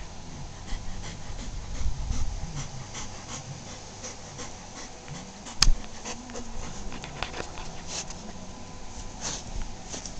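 Dog making low sounds that rise and fall in pitch, with breathing, scattered small clicks, and one sharp knock about halfway through.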